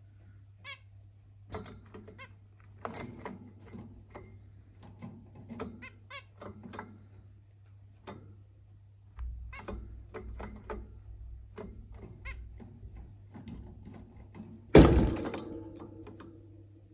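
Zebra finches giving short, nasal calls in quick, irregular runs. One loud knock about fifteen seconds in rings briefly.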